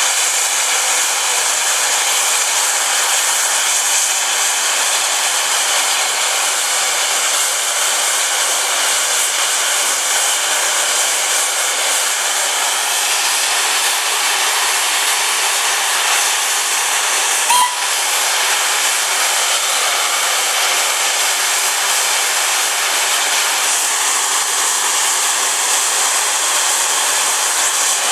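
Steam hissing steadily from a standing LSWR M7 class 0-4-4T steam tank locomotive, with one brief click about two-thirds of the way in.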